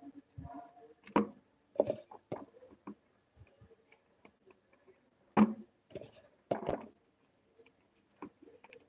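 Hands turning raw tuna steaks over on a paper plate to salt both sides: scattered soft taps and knocks, the loudest about a second in and again around five and a half seconds, with faint ticks between.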